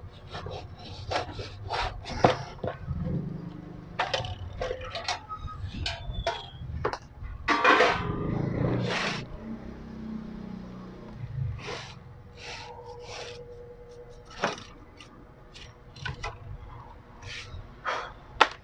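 Casing of an inverter welding machine being handled and pulled off: a string of clicks and knocks with some scraping, loudest about eight seconds in.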